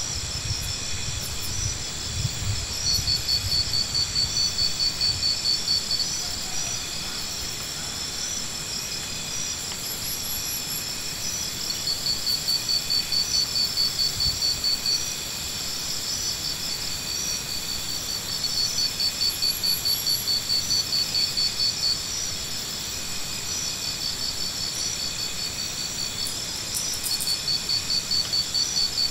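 Insects calling: a steady high ringing with a louder, fast-pulsed trill that comes in bouts of about three seconds, four times.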